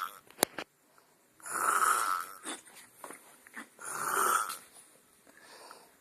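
A man snoring in slow, regular breaths, a noisy snore about every two and a half seconds: one ending just as it starts, then two full snores. A sharp click about half a second in.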